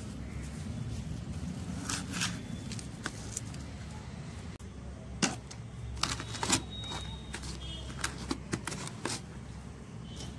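Hands spreading and lightly patting loose compost over kitchen waste in a bucket: scattered short rustles, clicks and knocks over a steady low background rumble.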